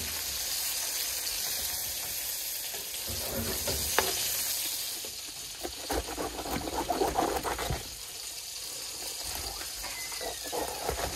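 Burger patties frying in a pan with a steady sizzling hiss, and a sharp click about four seconds in.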